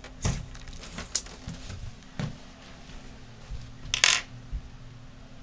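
Scattered light clicks and knocks of small hard objects being handled, with a brief louder clatter about four seconds in.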